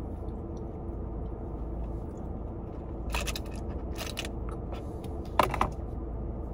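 Steady low hum inside a car's cabin, broken three times by short mouth noises from sipping a drink and eating, the loudest about five and a half seconds in.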